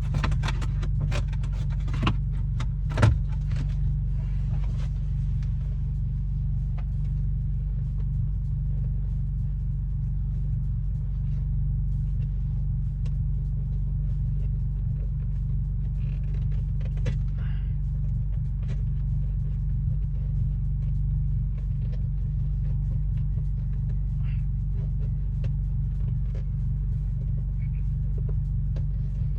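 Steady low hum of a car idling, with scattered clicks and knocks of plastic trim and wiring being handled; the loudest knock comes about three seconds in.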